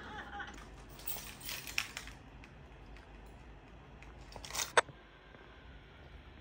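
Small objects clinking and rattling as they are handled, in two short bursts; the second ends in a sharp click, the loudest sound here.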